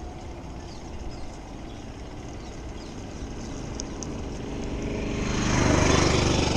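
Wind and road rumble on a bicycle-mounted camera, then a small goods carrier's engine passing close alongside, growing louder from about five seconds in and loudest near the end.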